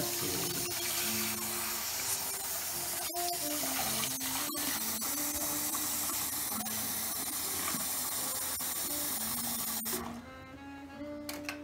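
Kitchen faucet running hard into a stainless steel sink while a wire whisk is rinsed under the stream; the water is shut off about ten seconds in.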